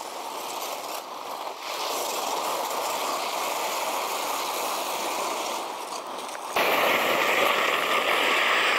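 Steady scraping hiss of skis sliding over icy, hard-packed snow, growing louder and brighter about six and a half seconds in.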